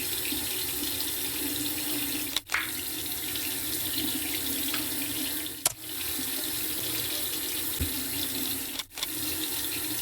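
Water running steadily from a tap into a sink, broken by three brief dips roughly three seconds apart.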